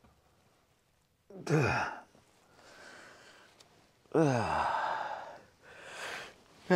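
A man sighing as he wakes and stretches: a sigh about a second and a half in, a longer breathy one about four seconds in, and a short one near the end, each falling in pitch.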